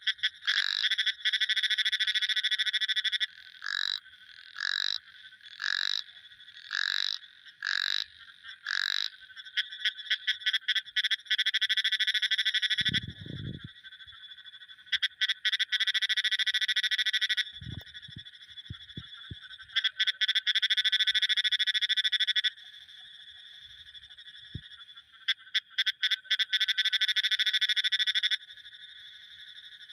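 Frogs calling: short calls about once a second, then long rapid pulsing trills of about three seconds each, repeated several times with short gaps. A brief low thump comes about halfway through.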